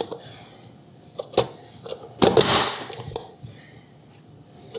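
Sparse light knocks and handling sounds as raw potato pieces are moved around a plastic Fullstar vegetable chopper and a cutting board. There is a short scrape about two seconds in and a brief high squeak near three seconds.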